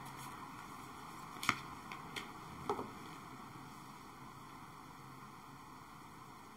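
A few faint, sharp clicks over quiet room noise, four of them about a second and a half to three seconds in: tarot cards being handled and laid down.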